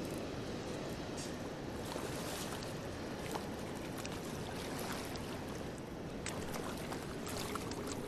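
Steady rush of river water flowing below a dam, with scattered light clicks over it.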